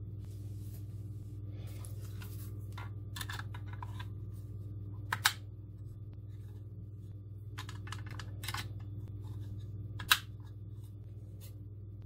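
Sharp metallic clicks and light handling noise as gold-plated quarter-inch-to-3.5 mm jack adapters are pushed into the quarter-inch headphone jacks of a small metal-cased headphone amplifier. The two sharpest clicks come about five and ten seconds in, over a steady low hum.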